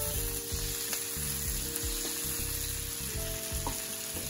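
Sliced onion and shiitake mushrooms sizzling in oil in an electric wok, stirred and scraped around the pan with a wooden spatula.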